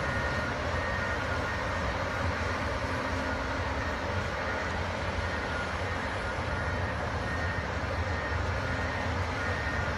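Diesel engines of crawler bulldozers running under load while pushing muck, a steady low drone with no let-up. A faint high tone comes and goes over it.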